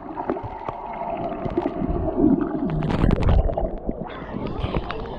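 Muffled underwater sound on a camera held below the surface: low gurgling and rumbling with a steady hum. About three seconds in, the camera breaks the surface with a loud splash, followed by the open-air splashing of swimmers in the sea.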